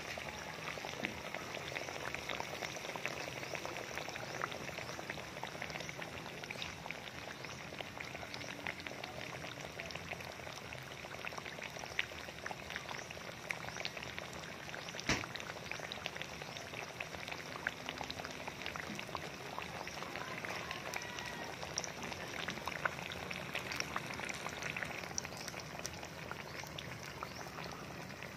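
Battered banana slices deep-frying in hot oil: a steady sizzle made of dense fine crackles, with an occasional sharper pop, the loudest about fifteen seconds in.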